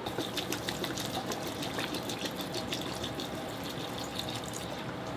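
Water being poured from a bottle: a steady splashing stream full of small crackling ticks from the pour.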